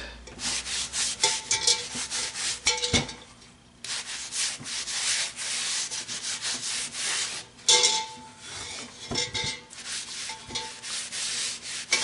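Oiled paper towel rubbing over the cast iron of a Dutch oven in quick repeated wiping strokes, seasoning the pot. A few light knocks come in between, the loudest about eight seconds in.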